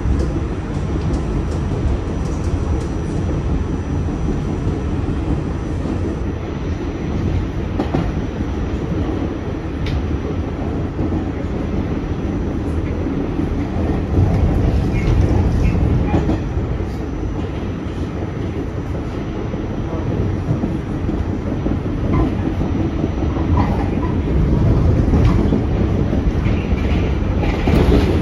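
R46 subway car running on the line: a steady low rumble, with scattered clicks as the wheels pass over rail joints.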